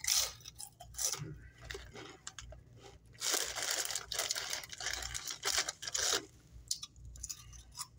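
Crinkling of a Doritos chip bag as a hand rummages inside it for a chip, a dense crackling that lasts about three seconds in the middle. Before it come scattered crunches of chewing chips.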